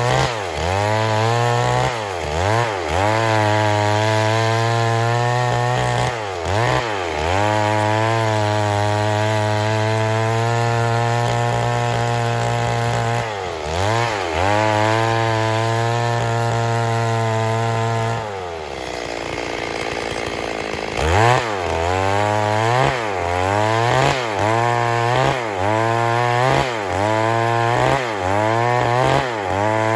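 Stihl MS 382 two-stroke chainsaw running at high revs, its pitch dipping and recovering again and again, with a long steady stretch early on. About two-thirds of the way through it falls back toward idle, then revs up again with quick dips about once a second.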